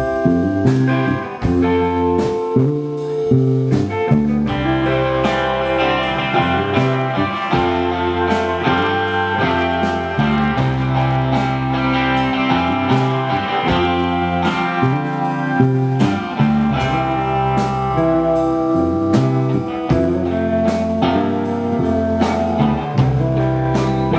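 Live blues-rock band playing an instrumental passage without vocals: guitar to the fore over bass and drums, the guitar part filling out about four seconds in.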